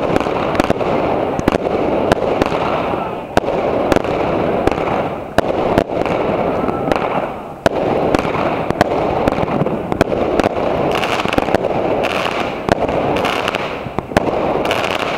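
Aerial fireworks going off: a string of sharp bangs, roughly one or two a second, over continuous loud rushing noise between them.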